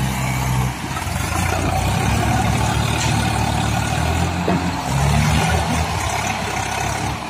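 Swaraj 744 FE tractor's diesel engine running, its revs shifting up and down a couple of times as it works the field.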